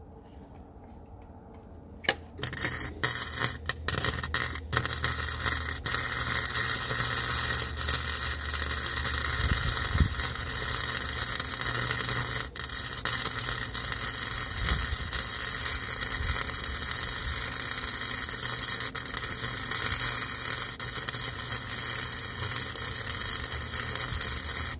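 Electric arc welder laying a bead on the steel ball-hitch mount: a few short stop-start strikes about two seconds in, then a continuous crackling, frying hiss that cuts off abruptly at the end.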